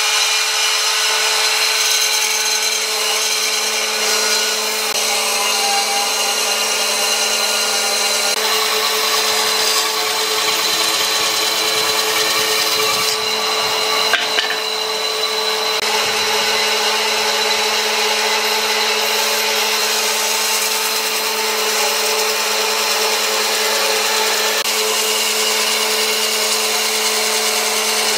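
Electric power tool running steadily under load on wood, with a constant motor hum and the rasp of the wood being cut or ground.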